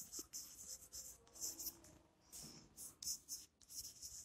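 Chalk writing on a blackboard: a string of short, faint, scratchy strokes with brief gaps between them.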